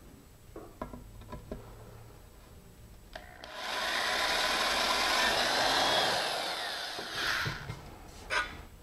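Corded electric drill boring through a fiberglass rocket body tube: a few light handling clicks, then about three seconds in the drill runs for about four seconds, a motor whine over gritty cutting noise, its pitch falling as it winds down near the end.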